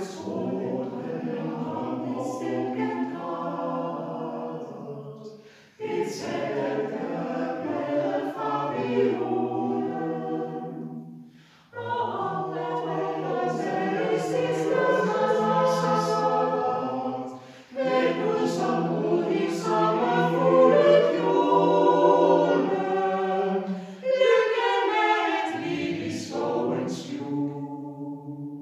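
Mixed a cappella choir of men's and women's voices singing a Danish song in phrases of about six seconds, with short breaks between them, in a stone church.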